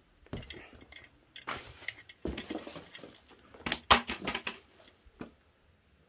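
Old dishes and pots clinking and clattering as they are handled or knocked among, a string of uneven knocks with the loudest clank about four seconds in.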